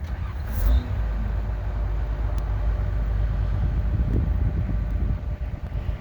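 Diesel engine of a 2004 Hitachi Zaxis 200LC excavator running steadily with a deep low sound. A brief higher-pitched noise sounds about half a second in.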